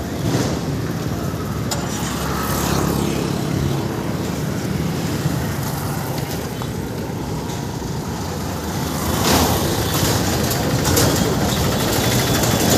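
Road traffic on a city street: motor vehicles running past, with a louder vehicle passing about nine seconds in.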